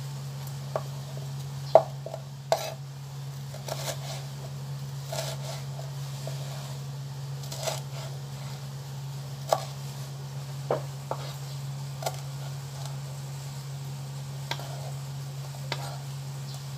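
Kitchen knife cutting vegetables on a board: scattered, irregular knocks of the blade striking the board, over a steady low hum.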